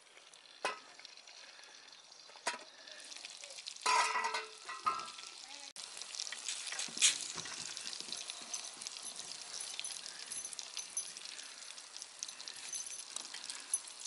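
Fish and vegetables sizzling in a hot cast-iron skillet, a steady crackling hiss with many small pops. Before that come a few knocks and a metallic clatter about four seconds in.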